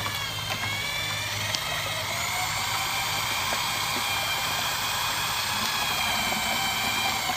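Variable-speed electric drill running a paddle mixer in a plastic pail, churning thick urethane coating, with a steady high whine that wavers slightly in pitch. The paddle is breaking the settled sludge of the coating's part A back into solution.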